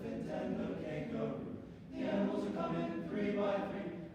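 Choir singing a spiritual a cappella in several voice parts: one phrase, then a short dip about two seconds in, then a louder phrase.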